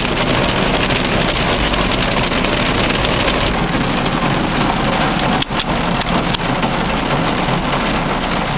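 Rain mixed with small hail hitting a car's windscreen and roof, heard from inside the cabin: a dense, steady patter of countless small impacts.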